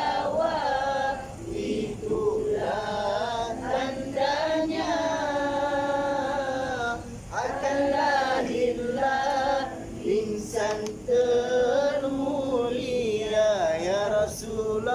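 A man singing a solo devotional selawat in praise of the Prophet Muhammad, with long, drawn-out notes that waver in pitch and short breaths between phrases.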